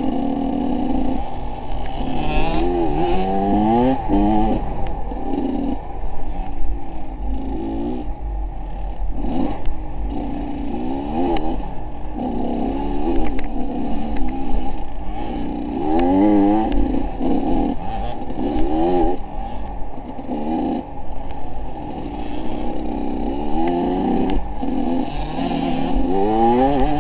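A vehicle engine revving up and down again and again, its pitch rising and falling every second or two over a steady low rumble, with scattered knocks and rattles.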